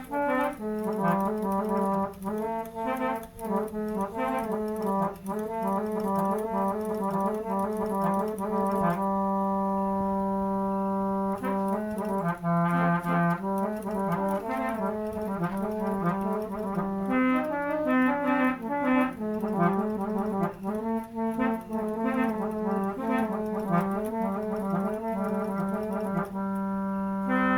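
Musical vehicle horn (klakson) played as a melody: steady brassy notes changing one after another, with a few notes held for several seconds near the middle, cutting off at the end.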